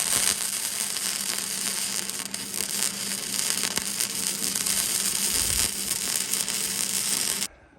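Hobart electric welder arc running steadily with a dense crackle and a faint low hum underneath, cutting off suddenly near the end as the weld stops.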